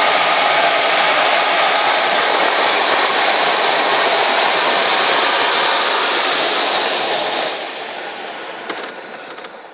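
Loud, steady rush of airflow over the canopy of a Schleicher ASK 21 glider, heard from inside the cockpit at high speed in the dive and pull-up of a stall turn. The rush fades away over the last couple of seconds as the glider slows near the top of the climb.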